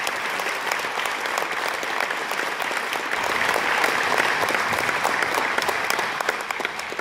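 Audience applauding, a dense even clapping that grows louder about three seconds in and eases near the end.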